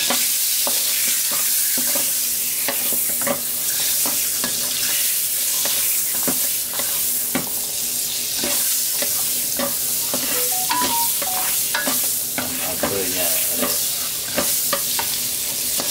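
Beef frying in butter in a pan, sizzling steadily, while a utensil stirs it with frequent short knocks and scrapes against the pan.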